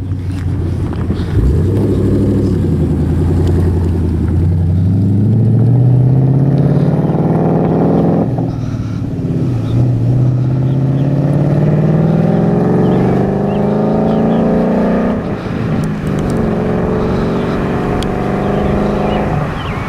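Ford Mustang Boss 302's 5.0-litre V8 accelerating through the gears. The pitch climbs steadily for about eight seconds, drops at an upshift, climbs again, then drops at a second shift and holds fairly steady near the end.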